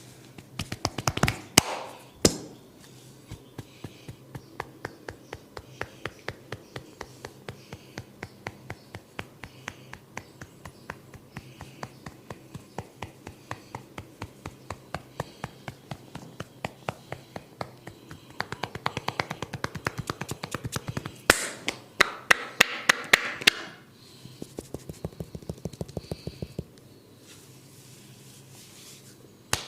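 A barber's hands tapping a man's head in a head massage: a steady run of sharp taps about three a second, with louder, quicker flurries of strikes near the start and again about three quarters through.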